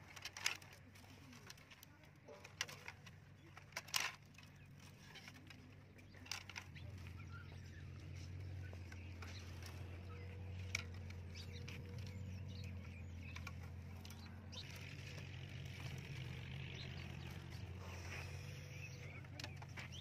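Bamboo sticks knocking and rustling as they are handled and woven into a cage, with a few sharp clacks in the first few seconds. A low steady hum sets in about six seconds in.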